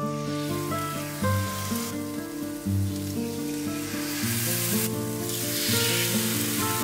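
Marinated chicken breasts sizzling in hot oil in a grill pan as they are laid in with tongs; the sizzle grows louder about four seconds in.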